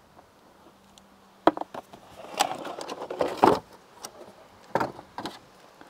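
Cardboard packaging being handled: quiet at first, then a sharp knock about a second and a half in, a couple of seconds of rustling and scraping, and two more knocks near the end.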